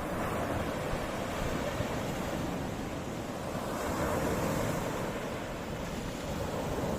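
Sea waves washing steadily, with wind rumbling on the microphone.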